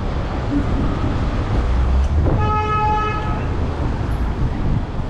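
A single vehicle horn honk, one steady tone lasting about a second, a little past two seconds in, over a steady low rumble of street noise.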